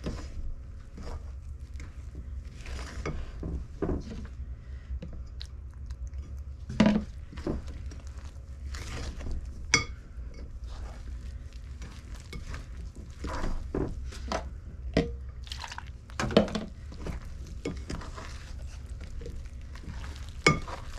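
A spoon scraping and clinking irregularly against a ceramic mixing bowl as cake batter is stirred by hand, over a steady low hum.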